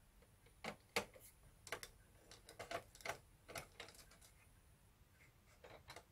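Screwdriver turning out screws from the sheet-metal cover plate of a Hitachi VT-S1000 VCR. Irregular light metallic clicks and ticks, about a dozen, with a few more as the plate is handled near the end.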